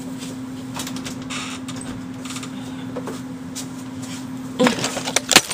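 A steady low hum under scattered faint knocks and rustles of someone rummaging off-camera for a pair of shoes, with a few louder knocks and clatter near the end.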